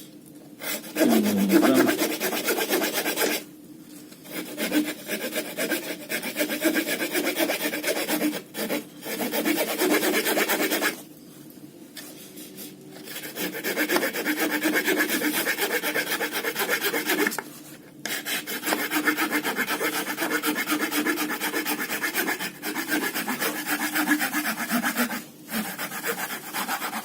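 Saw blade of a Victorinox German Army Knife rasping back and forth through a wooden stick in quick strokes. The sawing comes in several bouts separated by brief pauses.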